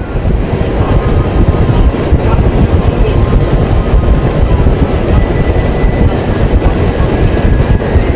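Small motorboat travelling fast: its outboard engine running steadily under a loud, uneven rush of wind buffeting the microphone.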